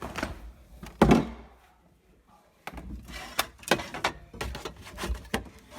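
One heavy thud about a second in, then a run of irregular knocks and clicks.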